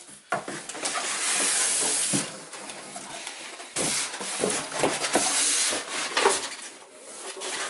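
Packaging being handled: plastic and cardboard packing rustling and scraping in several bursts, with small knocks in between.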